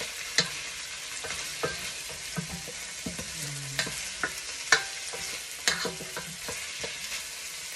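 Meat and vegetables sizzling as they sauté in a pot, stirred with a plastic spoon that knocks against the pot about once a second.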